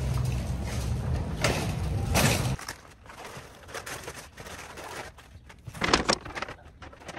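A loaded shopping cart rolling over concrete pavement, its wheels giving a steady low rumble with rattles, which stops abruptly about two and a half seconds in. Then quieter rustling and knocks of paper grocery bags being handled and set down, with a louder burst of handling noise about six seconds in.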